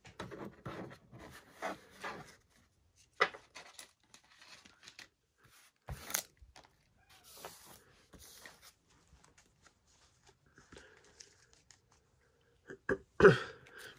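Glossy trading cards being shuffled and handled, with short card-on-card rustles, slides and sharp taps against the desk; a louder short knock near the end.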